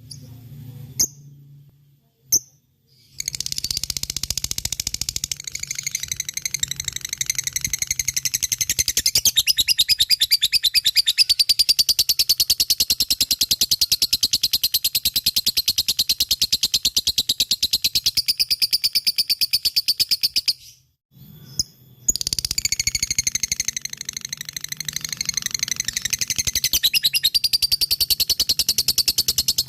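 Lovebird ngekek: a long, unbroken, very rapid high chattering trill. It starts about three seconds in after a few short chirps, stops for about a second about two-thirds of the way through, then starts again.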